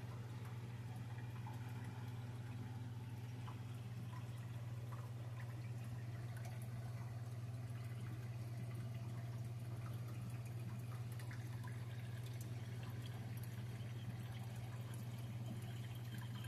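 Aquarium water trickling and dripping faintly over a steady low hum.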